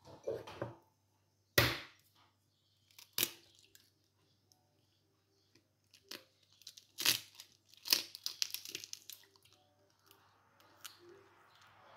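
An egg tapped against a mixing bowl and its shell cracked open: several sharp knocks a second or more apart, the loudest near the start, then a cluster of crackling shell sounds about two-thirds of the way in.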